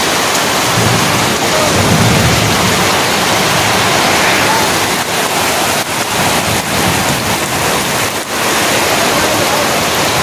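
Heavy monsoon rain pouring down in a steady, loud hiss.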